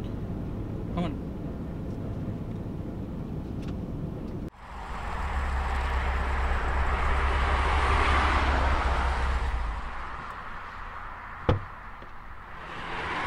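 Street traffic around a parked car: a low steady rumble, then after a sudden change a rushing noise swells and fades like a vehicle going by. A single sharp click comes near the end.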